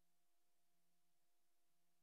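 Near silence: the silent film's empty soundtrack, with only a faint steady hiss and hum.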